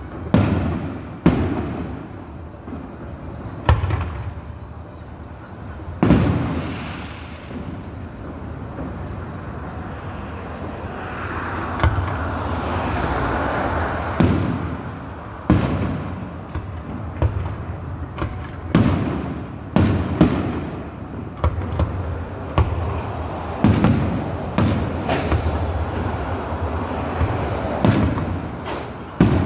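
Aerial fireworks bursting at a distance: a string of sharp booms, each rolling off in an echo, coming thicker and faster in the second half. A stretch of steadier hiss and crackle sits around the middle.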